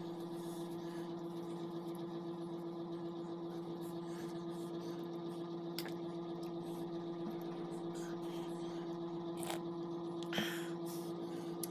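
Steady hum of a small electric desk fan running, with a few light clicks and a short scrape of tableware being handled on a plastic tray, about halfway and near the end.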